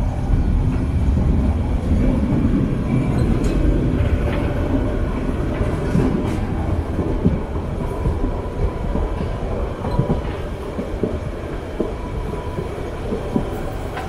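Carriages of the Molli narrow-gauge steam train running on the rails, heard from a carriage window: a steady rumble with irregular clicks of the wheels over the track. A faint thin wheel whine comes in around the middle as the train rounds a curve.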